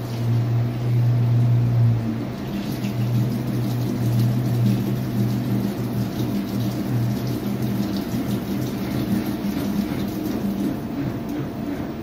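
Front-loading washing machine running, with its drum turning and water and laundry sloshing over a low motor hum. The hum is strong and steady at first, then weakens and wavers about two seconds in.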